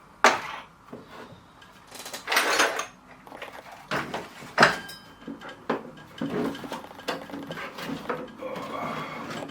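Metal hand tools being handled: irregular clinks and knocks as they are picked up and set down, with a sharp knock just after the start and a longer rummaging scrape around two seconds in.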